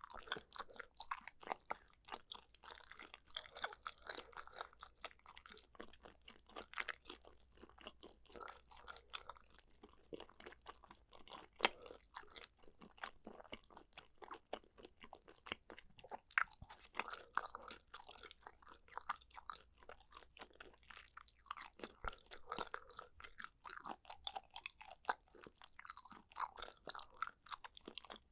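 Close-miked chewing of boneless chicken feet and pork skin: continuous crunchy, crackling bites and chews, with brief pauses.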